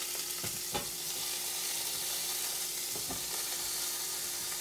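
Beef bones sizzling steadily as they brown in the bottom of an Instant Pot, with a few short knocks as more bones are set into the pot, twice in the first second and once about three seconds in.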